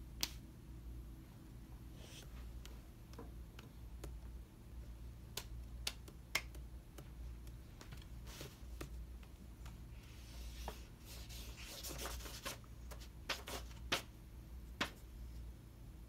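Marker scribbling on poster paper: scratchy rubbing strokes, heaviest for a couple of seconds about two-thirds of the way through. Several sharp clicks are scattered through, over a low steady hum.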